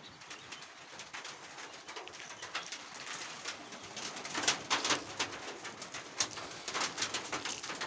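Lemons being squeezed by hand over omena sardines soaking in hot water: a run of short wet squelches and drips that comes on about halfway through. Doves coo in the background.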